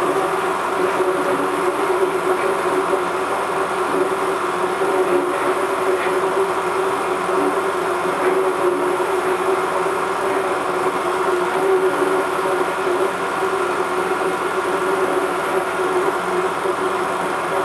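Steady mechanical drone with a constant low hum, unchanging in level throughout.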